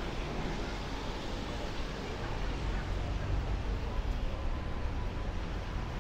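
Steady city-street background noise: a low rumble of traffic with an even hiss, and no distinct events.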